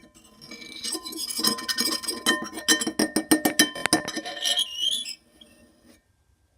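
Rapid clinking and tapping of hard objects, with short ringing tones. It builds about a second in and stops about five seconds in.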